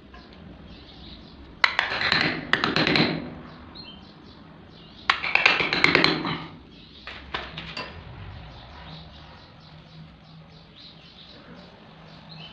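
Two short bursts of clattering and scraping, about two and five seconds in, with a few weaker clatters after them; faint short high chirps repeat throughout.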